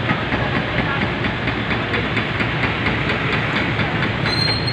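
Heavy vehicle engine idling close by, a steady run with a rapid mechanical clatter.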